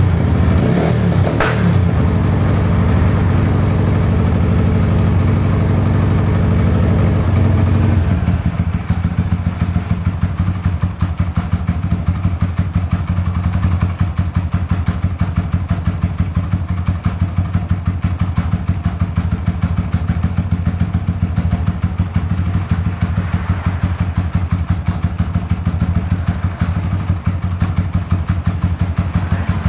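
Kawasaki KLX single-cylinder four-stroke engine running on its freshly cleaned and adjusted carburettor: a little faster and louder at first, then about eight seconds in it drops to a steady, even idle.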